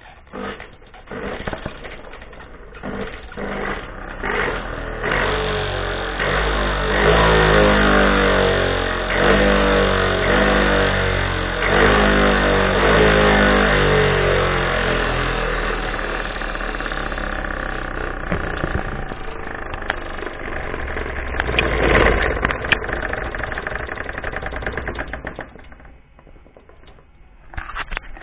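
Electric blender motor rebuilt as a spinner, whirring as it spins a basket of fried food to fling the oil off. It comes on in short pulses, then runs up to speed with its pitch wavering up and down, and winds down near the end.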